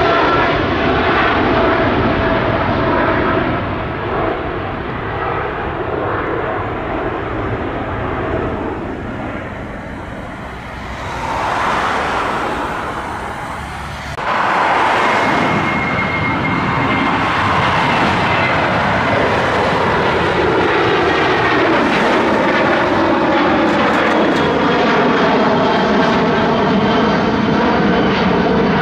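Jet airliner engines at takeoff power: a steady rush of engine noise with faint whining tones. The sound sags for several seconds, then comes back to full strength suddenly about halfway through.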